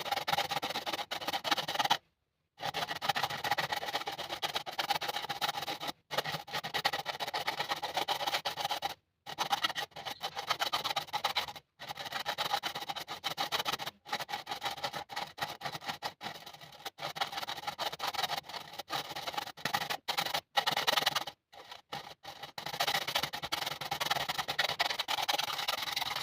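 Aluminium foil being crinkled and rubbed: a dense crackling rustle, broken by several abrupt silent gaps.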